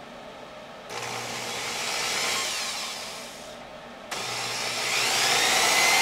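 Corded electric drill running twice while boring pilot holes for tweeter mounting screws in a speaker baffle. The first run starts about a second in and winds down after about three seconds. After a short pause a second, louder run starts with its motor whine rising.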